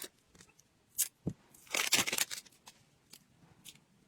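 Small objects being handled: a few light clicks and taps, then a short burst of crinkly rustling about two seconds in.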